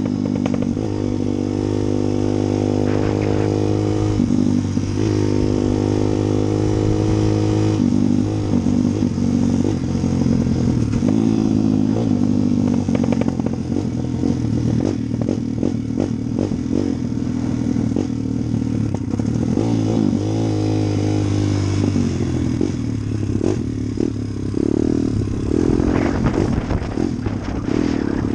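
An engine running steadily. Its tones shift in pitch every few seconds, and a stretch of rapid clatter comes in the middle.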